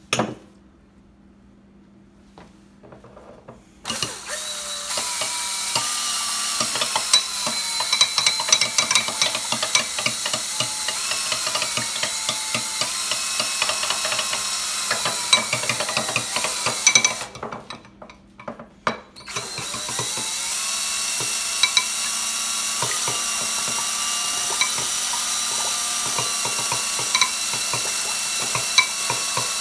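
DeWalt cordless drill spinning a spoon chucked in its bit holder to whisk eggs in a glass bowl: a motor whine that wavers in pitch over a rapid rattle. It starts about four seconds in, stops for a couple of seconds around the middle, then runs on steadily.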